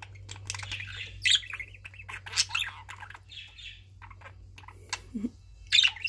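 Male budgerigars chirping in a quick, irregular run of short, high-pitched calls.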